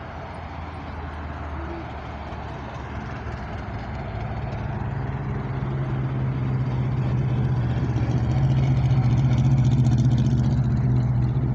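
Race cars driving slowly past one after another in a return convoy down a hillclimb course, their engines running at low revs rather than at race pace. The steady engine hum grows louder and is loudest near the end as a car comes close.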